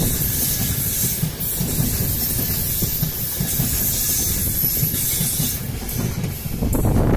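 LNER InterCity 225 passenger coaches rolling past: a steady rush of steel wheels on the rails with a low rumble and hiss.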